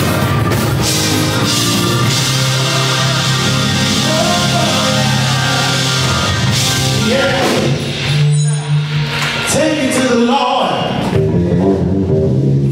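Live gospel band playing, with bass guitar, drums and keyboards. About seven seconds in the band thins out to held chords under a voice singing.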